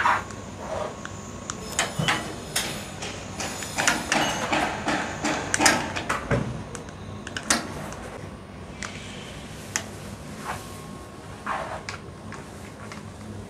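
Kitchen handling noises: irregular knocks and clicks of items being moved about and doors or drawers opening and closing, as someone rummages for ingredients.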